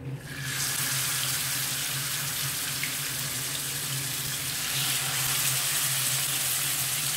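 Masala-coated fish pieces sizzling in hot coconut oil in a frying pan. The sizzle starts about half a second in as the first piece is laid in, then holds as a steady hiss.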